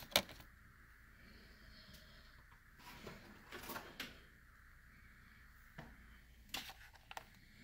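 Quiet handling of small die-cast model cars: one sharp click just after the start, then a few faint knocks and rustles as one car is put down and the next picked up.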